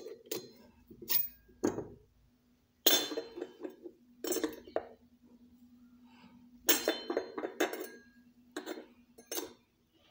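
Metal pieces clinking and clattering as the brazing torch and its gear are handled and set down, in several separate bursts with short metallic ringing.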